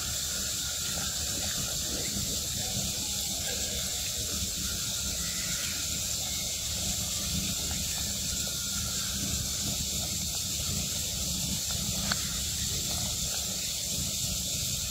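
Steady high-pitched drone of a forest insect chorus with a low rumble beneath it, and one sharper click late on.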